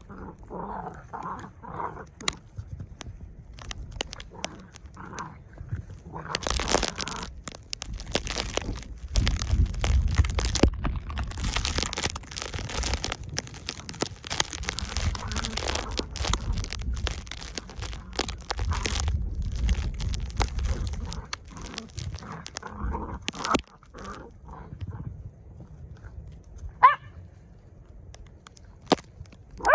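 Puppies play-fighting, with short growling and whimpering sounds in the first few seconds. A long stretch of loud, crackling noise from sleet hitting the microphone follows, and there is a single sharp rising yelp near the end.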